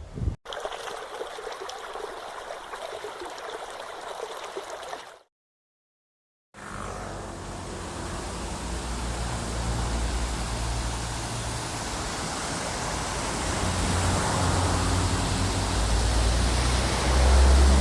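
Water running in a stream, a steady rushing noise. It cuts out to silence for about a second and a half, then returns louder and fuller, with a low rumble that grows toward the end.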